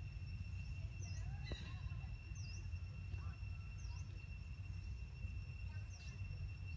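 Outdoor ambience: a steady low rumble under a constant high-pitched insect drone, with a bird repeating a short chirp every second or two.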